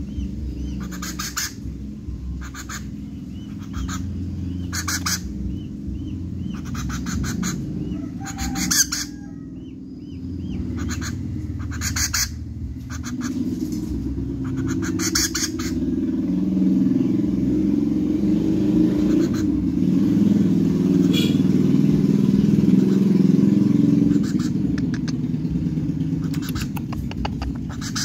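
Hand-reared young woodpecker giving short, raspy begging calls a dozen or so times while being fed, over a steady low rumble that grows louder in the second half.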